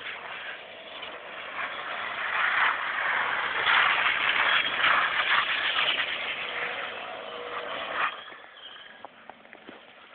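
Buick car being drifted: its engine running hard and its tires sliding across the pavement. The sound swells over the first few seconds and falls away sharply about eight seconds in.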